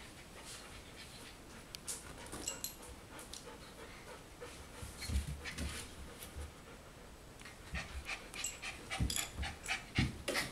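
Four-week-old golden retriever puppies panting and snuffling, with many small scratchy clicks and rustles as they move about on a blanket.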